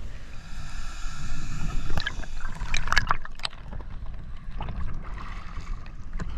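Underwater sound picked up through a camera housing: a low, muffled rumble of water with gurgling, a faint steady whine over the first three seconds or so, and a few sharp clicks near the middle.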